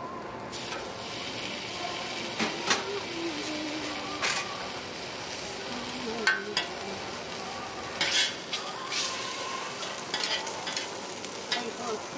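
Egg-and-cabbage patty and a slice of ham sizzling on a flat-top griddle, with sharp clicks and scrapes of metal tongs and a spatula against the hot plate. The sizzle comes in about half a second in and holds steady.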